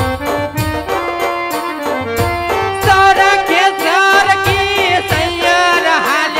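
Live Gujarati folk music: a drum beating under held instrumental notes, joined about three seconds in by a wavering, ornamented melodic line.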